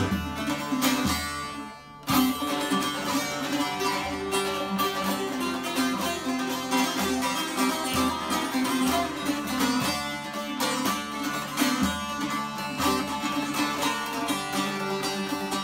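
Two bağlamas (Turkish long-necked saz lutes) strummed and plucked together in an instrumental passage, with no singing. The playing thins out briefly and comes back strongly about two seconds in.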